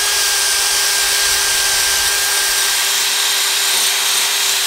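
Cordless drill spinning a steel wire cup brush against the aluminium side cover of a Honda Monkey engine: a steady motor whine under a scratchy hiss of wire scrubbing baked-on grime off the metal.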